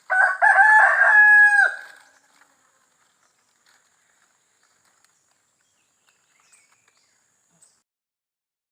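A rooster crows once, a loud call of nearly two seconds whose last held note drops away sharply at the end.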